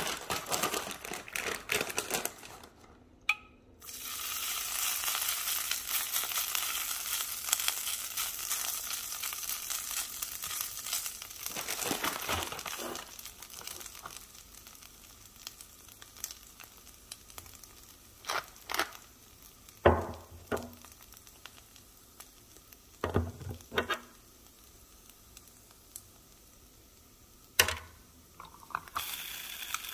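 Shredded hash browns sizzling on the hot plate of a mini waffle maker for about ten seconds, fading out. Later comes a scatter of sharp taps and short shakes as seasoning is shaken over the potatoes.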